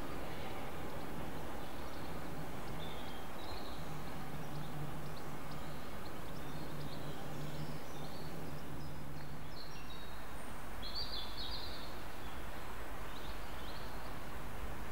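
Outdoor ambience: steady wind noise with birds chirping now and then, one brighter burst of song about eleven seconds in. A low steady hum underneath stops about ten seconds in.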